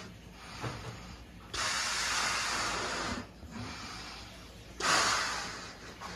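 Two long, hard blasts of breath blown out, the first steady and cut off sharply, the second near the end fading away.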